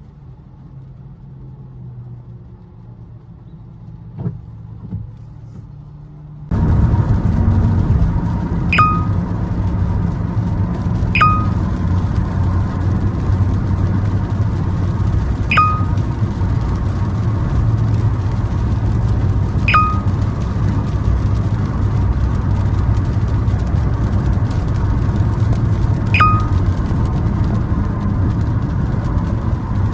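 Car cabin noise: a quiet low engine hum while stopped, then suddenly much louder steady road and driving rumble about six seconds in. A short high ping sounds five times at uneven intervals over the rumble.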